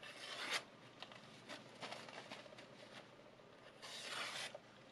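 Chinese chef's knife blade slicing through paper in a sharpness test: a short rasping swish right at the start as it cuts a sheet of paper, faint rustles and ticks, then a second swish about four seconds in as it cuts through a paper towel.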